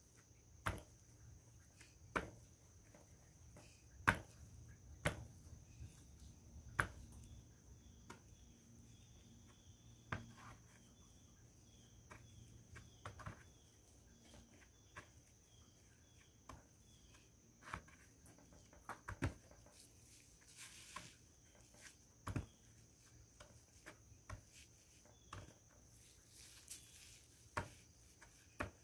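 Naphthalene mothballs being crushed under a gloved fist on a wooden tabletop: sharp crunches and crackles at irregular intervals, the loudest in the first several seconds.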